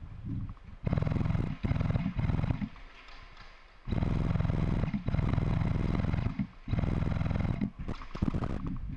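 Airsoft electric gun firing long full-auto bursts, its gearbox cycling rapidly. There are several bursts with short pauses between them, the longest nearly three seconds.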